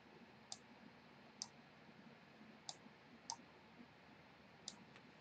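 Computer mouse button clicking: about six short, sharp clicks at uneven intervals, faint over a quiet background.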